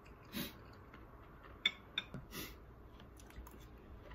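Quiet chewing of food, with a few short sharp clicks, the sharpest about one and a half seconds in and another at two seconds.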